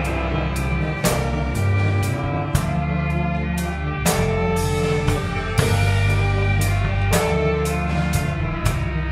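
Background music with a steady drum beat, about two hits a second, over held bass notes.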